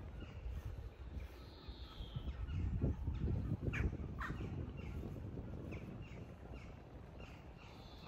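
Crows cawing over a steady low rumble.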